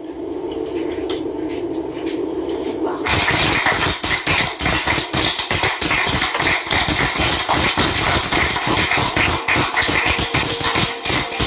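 TV drama opening theme music: a low held tone for about three seconds, then the full music comes in loudly with a fast, steady beat.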